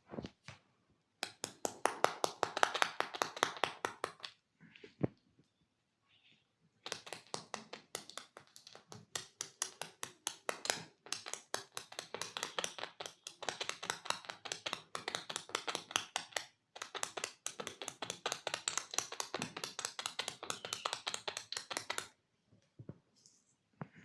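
Hands tapping rapidly in a percussive massage, about six sharp strikes a second. A short run, a pause of about two seconds, then a long run with a couple of brief breaks.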